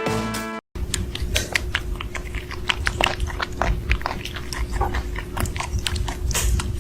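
A pet chewing and crunching noisily close to the microphone: a fast, irregular run of crunches and clicks over a steady low hum.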